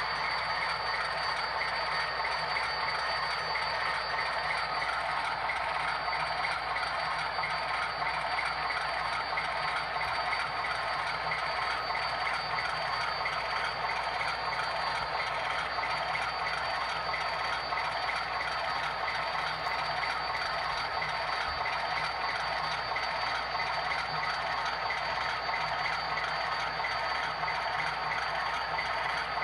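Model railway turntable's drive motor and gearing whirring steadily as the bridge rotates, with a thin steady high whine over a fine mechanical rattle.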